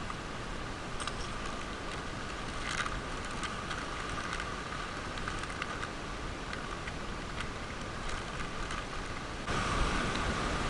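Steady rush of sea and wind with small clicks and crinkles as a plastic soft-lure packet is handled. About nine and a half seconds in, the louder wash of surf breaking on rocks comes in.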